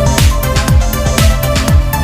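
Electronic dance music with a fast, steady kick-drum beat, about four beats a second, under sustained synth tones.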